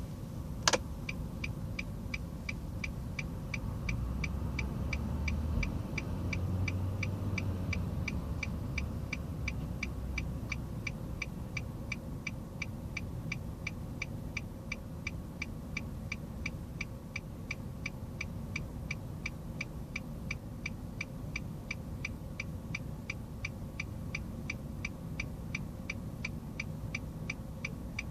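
Car turn-signal flasher ticking at a steady, even rate of about three clicks a second, with a single louder click less than a second in. A low engine rumble runs underneath.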